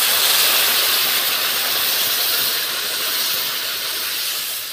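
Water poured into a wok of hot oil and fried vegetables, hissing loudly as it hits the hot oil and turns to steam. The hiss starts suddenly and slowly dies down as the pan cools.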